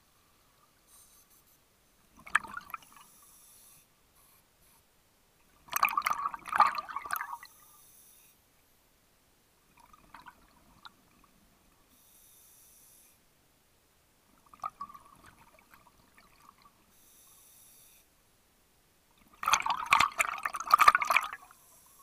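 Scuba diver breathing through a regulator underwater: five gurgling bursts of exhaled bubbles, the loudest about six seconds in and near the end, with a faint hiss of inhalation between them.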